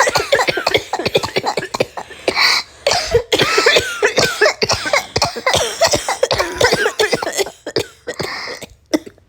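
Sick people coughing hard and repeatedly, dozens of coughs in quick succession, some of them with a voiced edge, dying down near the end.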